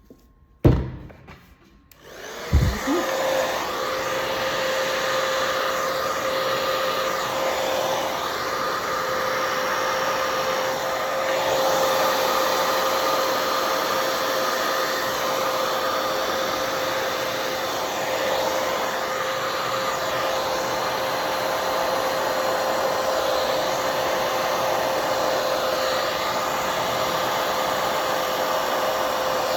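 A handheld blow dryer switches on about two seconds in and then runs steadily on a continuous whooshing hum, blowing poured acrylic paint across the canvas. A sharp knock comes just before it starts, and another as it comes on.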